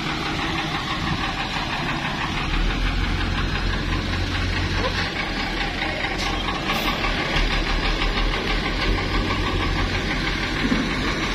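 Toyota DA100 crane tow truck's engine idling steadily, with a low rumble that grows louder about two and a half seconds in.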